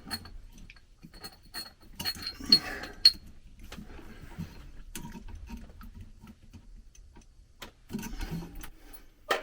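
Scattered small clicks and taps of hand work with a screwdriver, wires and terminal screws on a ceiling light receptacle, with a few louder clicks about two to three seconds in and near the end.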